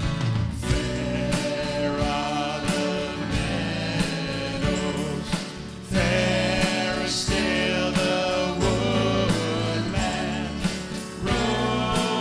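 A group of voices singing a Christian song with instrumental accompaniment, including guitar, and a steady beat.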